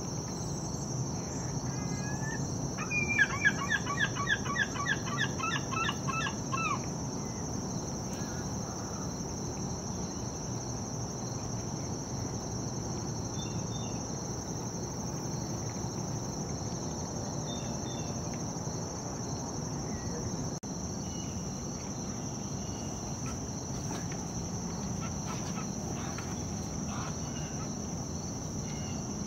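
Insects give a steady, high-pitched drone throughout. About three seconds in, a bird calls a fast series of about a dozen harsh notes lasting three to four seconds, with a few faint chirps later.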